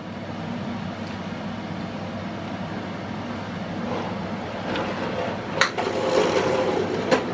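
Wooden spoon knocking against the rim of an aluminium cooking pot while lifting out boiled cabbage leaves: two sharp knocks near the end. A steady rushing noise lies underneath.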